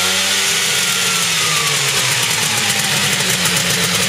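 The engine of a homemade helicopter running just after starting. Its pitch rises briefly, sinks over the next couple of seconds and settles to a steady idle.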